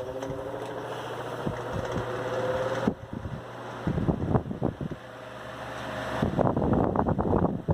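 Arno Versátil electric fan running with an out-of-balance generic blade. Its hum rises in pitch at first as it gets up to speed, drops off suddenly about three seconds in, then comes back with two spells of rattling and knocking as the shaking fan vibrates. A copper-wire clip weight on one blade is being tried to cure the imbalance.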